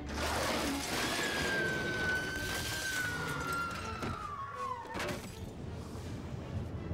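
Crashing and shattering over one long, high scream that slowly falls in pitch and cuts off abruptly about five seconds in: a person screaming as they fall during a ship's capsize.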